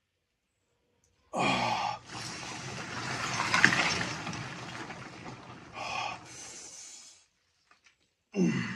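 Ice water full of ice chunks sloshing and splashing as a man moves his arms through it in an ice bath, for about five seconds. A man's loud gasp comes just before the splashing, a shorter vocal sound about six seconds in, and a breath out near the end.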